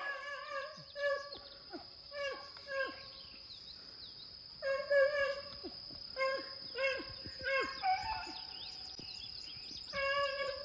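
A pack of beagles running a rabbit, baying and barking in bursts of short calls that often drop in pitch at the end, with pauses between the bursts.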